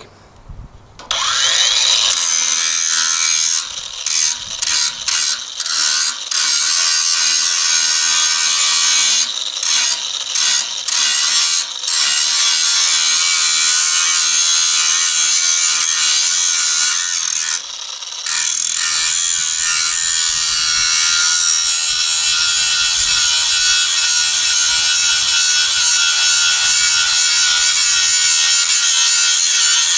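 MtiolHig 20V brushless cordless angle grinder, its abrasive disc grinding a steel air-hammer chisel: loud grinding that starts about a second in. It breaks off briefly several times while the disc is lifted, then grinds continuously through the last third.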